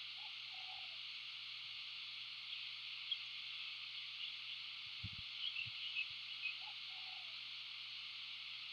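Two short, low, hoot-like bird calls, one near the start and one about seven seconds in, over a steady high hiss, with a few faint clicks in between.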